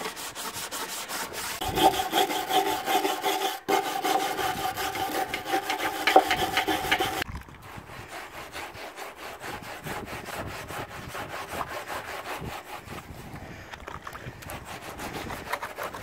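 A kitchen sponge scrubbing rapidly back and forth, first over the washing machine's plastic outer tub, then more quietly over the perforated stainless steel drum from about seven seconds in, cleaning off thick goo. From about two to seven seconds a steady squealing tone runs over the strokes.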